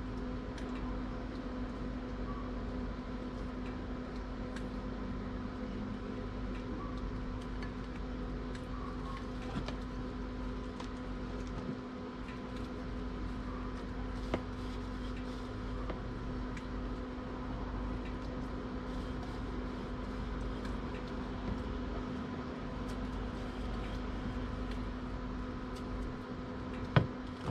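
Steady machine hum, even in pitch, with a light knock from a bowl being handled about halfway through and again near the end.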